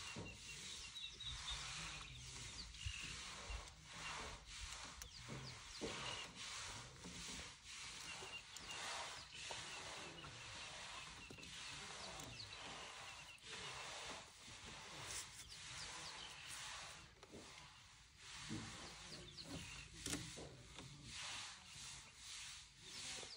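Baby elephant feeding on a leafy branch: irregular rustling of leaves and crunching of twigs as it strips and chews them, faint and coming and going.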